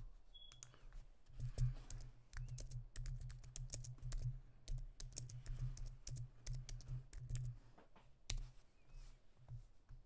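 Typing on a computer keyboard: a quick, irregular run of key clicks that thins out after about eight seconds.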